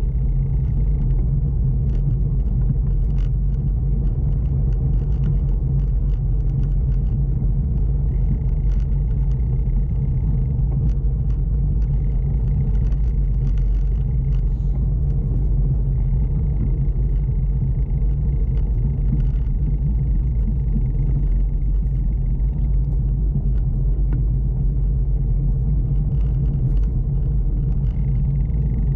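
Steady low rumble of a bicycle ridden along a wooden boardwalk, its tyres rolling over the planks, with small clicks and rattles scattered throughout.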